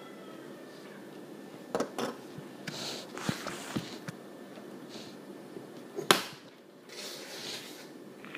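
Plastic Lego bricks knocking and clicking as they are handled, a handful of separate sharp clicks with the loudest about six seconds in, between patches of soft rustling.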